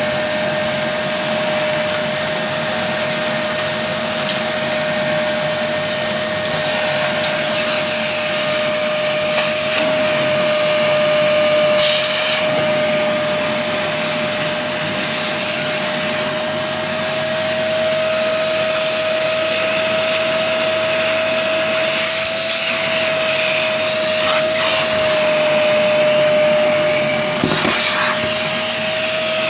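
Parkside PNTS 1500 C4 wet and dry vacuum running steadily with a constant whine, sucking up workshop debris. Short knocks and rattles break in a few times as pieces are drawn through the hose.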